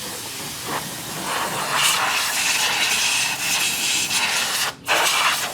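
A pressurised jet hissing steadily for about four seconds, as from an air blow gun or engine-wash spray. It cuts off briefly near the end and then starts again.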